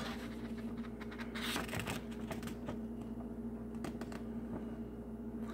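Light rustling and small crinkles of a large fold-out paper instruction sheet being held and shifted in the hands, over a faint steady hum.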